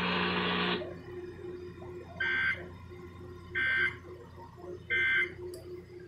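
Midland weather alert radio beeping three times, each beep short and evenly spaced about a second and a half apart, after the broadcast audio cuts off about a second in.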